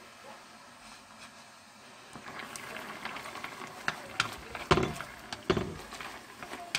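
Wooden chopsticks clicking and knocking against a nonstick pan while udon noodles are stirred apart in hot water, with wet splashing. A faint hiss for the first two seconds, then a run of quick clicks, the loudest knocks about halfway through.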